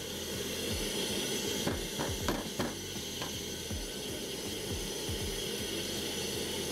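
Shop vac running steadily, drawing air through a tile-cutting dust-extraction table, a continuous hiss. A few light knocks from the cut porcelain tile being handled about two to three seconds in.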